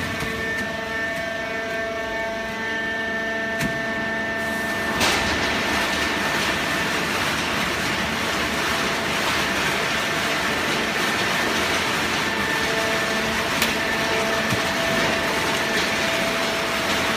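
Hydraulic cardboard baling press running: a steady machine hum with several held tones over a noisy rush, which grows fuller and louder about five seconds in, just after a sharp click.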